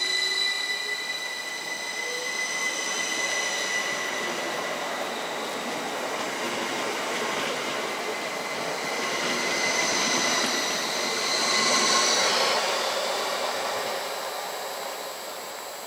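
Class 333 electric multiple unit moving through the station, its traction whine rising in pitch over the first couple of seconds, with wheel-on-rail noise. About ten to twelve seconds in, louder high whining and wheel squeal swell up, then fade away toward the end.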